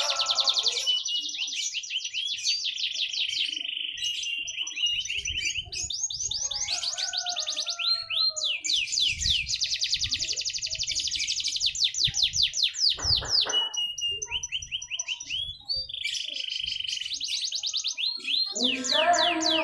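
A domestic canary sings a long, fast song of rapid trills and rolling repeated notes, switching between phrases with only brief pauses. Near the end a lower, pitched sound joins in.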